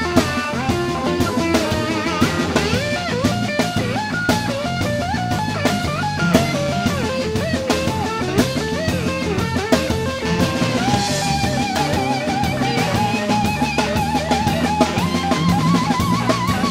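Live blues band playing: a lead line of bent notes over a steady drum-kit beat, electric guitar with drums. In the second half the lead settles into long held notes with vibrato.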